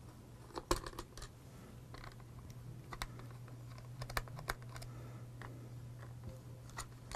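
Small screws being turned out of a Fluke 1730 energy logger's plastic battery panel: scattered sharp clicks and light scrapes of the screwdriver and screws, in a cluster about a second in and another around four seconds in.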